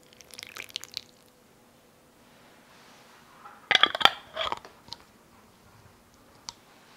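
A short patter of light clicks and drips as syrup is poured from a steel ladle into a glass jar, then a metal screw-top lid set onto the glass jar and twisted shut: a loud cluster of clicks and scraping on the threads, and one more sharp click near the end.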